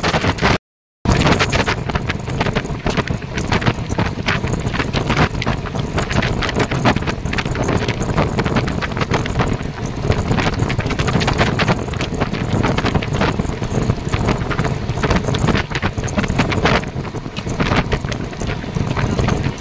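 Moving passenger train's running noise: a steady rumble with rapid, irregular rattling and clatter from the wheels and coach, and wind buffeting the microphone. The sound drops out completely for a moment just under a second in.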